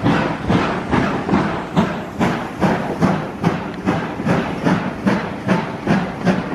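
Steam locomotive working under load, its exhaust beating evenly about two and a half times a second with hiss between the beats.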